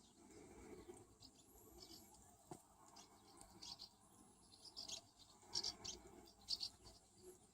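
Near silence with faint high chirps and soft, irregular clicking and rustling, busier in the second half.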